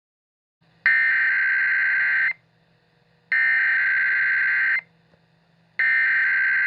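Emergency Alert System SAME header: three bursts of digital data tones, each about one and a half seconds long and about a second apart, signalling the start of a new emergency alert.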